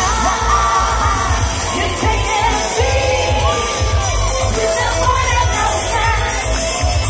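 Women's vocal group singing a dance-pop song live over amplified music with a heavy pulsing bass beat, heard through a large concert PA from the audience.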